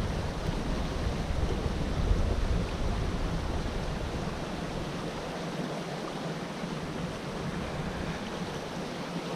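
Wind buffeting the microphone with a low rumble that eases off about halfway through, leaving a steady hiss of running creek water.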